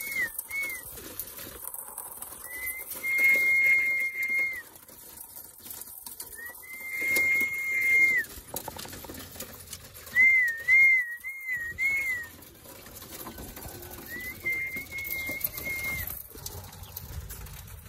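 Whistle calls at a high pitch, used to call roller pigeons to their kit box. There are five phrases about two seconds apart, alternating between quick warbling trills and long held notes that slide up at the start and drop at the end.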